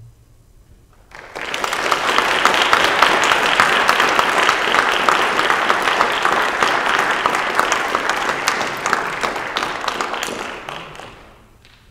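Audience applauding, starting about a second in, holding steady, and dying away near the end.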